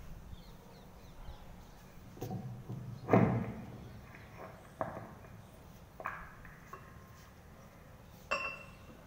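Microphone handling noise: a heavy thump about three seconds in as the handheld mic is pulled from its stand holder, then a few sharper knocks and clicks as the metal mic stand is shifted.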